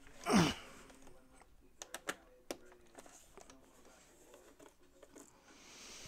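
Hands handling wiring and a multi-pin connector inside a metal-plated box: a few sharp small clicks and taps about two seconds in, over light rustling. Just before them, about half a second in, comes the loudest sound, a brief falling voice sound.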